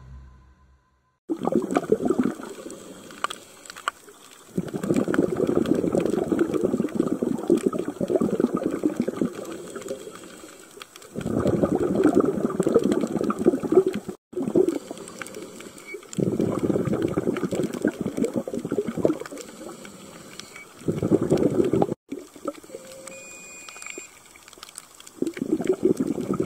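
Water washing in repeated surges a few seconds long, with quieter gaps between them, typical of waves coming in against the shore.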